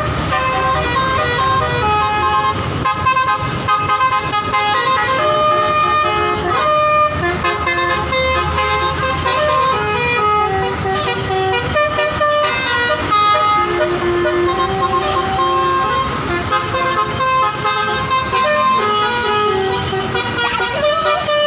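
Telolet basuri multi-tone horn on a Dedy Jaya tour bus playing a long melody of held notes that step up and down in pitch, with a low rumble beneath.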